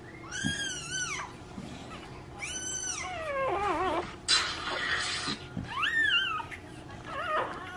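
Newborn puppy crying: about five high-pitched cries, each rising and falling in pitch, one lower and wavering, a sign that the revived pup is breathing. A short burst of rustling comes about halfway through.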